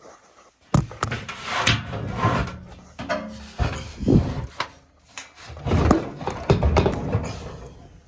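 Irregular scraping, rubbing and knocking of parts being handled and shifted by hand inside a gas furnace, with several sharp knocks along the way.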